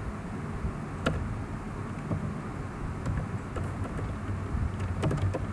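Computer keyboard keys clicking a few times as a name is typed and deleted: one click about a second in, a few faint ones in the middle, and a short run near the end. A steady low hum and hiss of background noise runs underneath.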